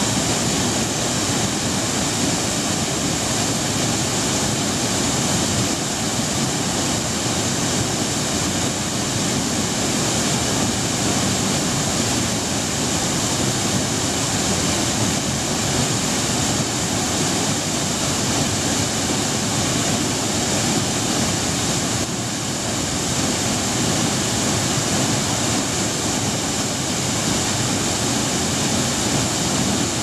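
Waterfall in full flow plunging into its plunge pool: a loud, steady, unbroken rush of falling and churning water.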